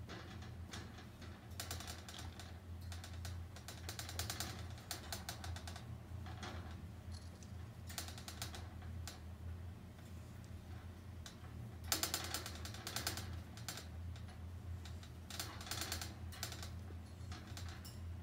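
Wire pet cage clicking and rattling in bursts of rapid clicks as kittens paw and scrabble at the bars chasing a pompom toy, over a steady low hum. The loudest burst comes about two-thirds of the way through.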